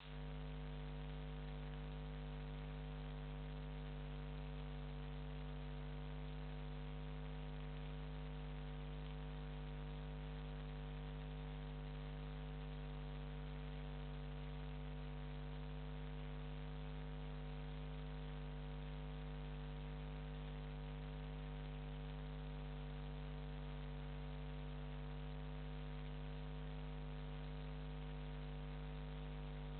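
Steady electrical mains hum with several overtones over a faint hiss, unchanging throughout.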